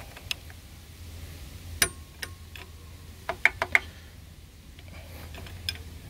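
Light clicks and taps of a small flat pry bar against an AW4 transmission's neutral safety switch as the switch is levered off its gunked-up shaft. A few scattered clicks come first, then a quick run of four about three and a half seconds in, over a faint steady low hum.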